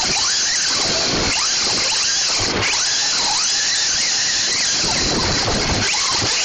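Traxxas Slash 4x4 RC truck's electric motor and gears whining, the pitch sweeping up and down many times with the throttle as it drives over dirt, over a steady hiss.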